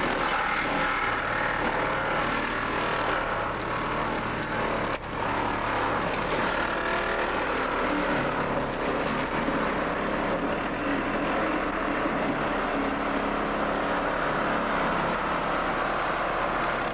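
Small gasoline engine of a hydraulic rescue tool power unit running steadily, with a single sharp knock about five seconds in.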